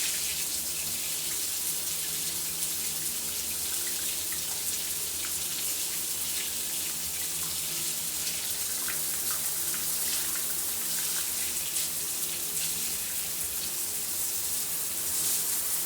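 Shower running: a steady hiss of water spray with small splashes and droplet ticks through it.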